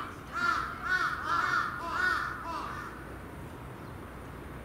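Crow cawing: a rapid series of about six harsh caws that stops a little past halfway.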